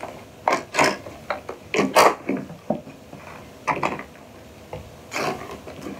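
Makeup containers being rummaged through and handled: irregular clicks, knocks and rubbing of small cases being picked up and set down, about half a dozen in all, the loudest about two seconds in.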